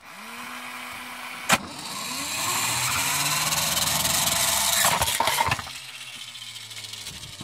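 Battery-driven motor of a Bandai Spiral Shooter toy launcher whirring up to fire its small toy motorbike out of the dragon's mouth. There is a sharp click about a second and a half in. The whirring grows louder for a few seconds, a few clatters come around five seconds in, and then a quieter steady hum follows.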